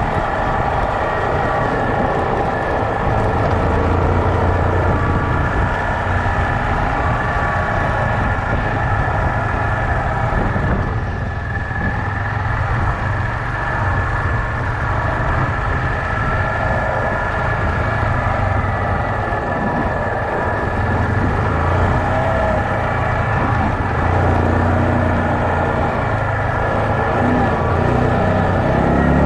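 Yamaha Kodiak 450 ATV's single-cylinder engine running steadily while riding a dirt trail, easing off briefly about eleven seconds in before picking back up.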